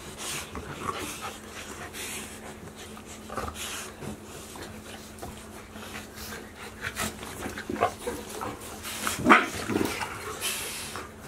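Golden retriever puppies play-fighting with an adult golden retriever: scuffling, mouthing and short dog vocal sounds scattered through, the loudest about nine seconds in.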